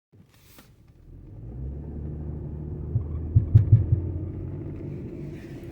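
Dodge Durango rolling with a low rumble, with a quick cluster of knocks from underneath about three and a half seconds in. This is the knocking ('golpeteo') it makes when driving or turning, as if the driveshaft were striking something.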